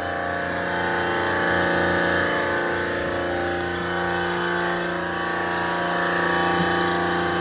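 Copeland refrigeration compressor running with a steady mechanical hum and drone.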